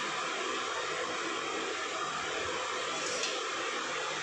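Steady even rushing noise, like a fan or background hiss, with a faint short tick about three seconds in.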